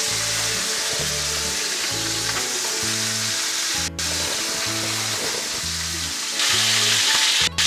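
Chicken thighs frying skin side down in olive oil in a cast iron skillet: a steady sizzle that gets louder about six and a half seconds in.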